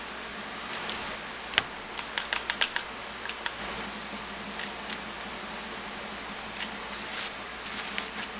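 One-handed bar clamp being squeezed shut on a glued wooden joint: a quick run of sharp ratchet clicks between about one and a half and three and a half seconds in, then a few scattered handling clicks, over a steady hiss.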